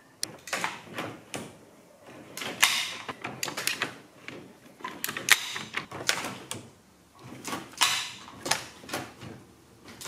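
Irregular series of sharp mechanical clicks and clunks from the remote control box and the throttle and gear shift cable linkage on a 15 hp Johnson outboard being handled and worked.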